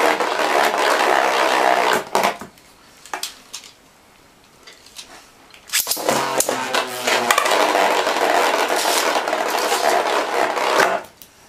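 Plastic Beyblade spinning tops whirring and rattling on a hard plastic stadium floor. The sound stops about two seconds in and a few light clicks follow. After a sharp click about six seconds in, a new battle's tops whir and clatter for about five seconds, then go quiet.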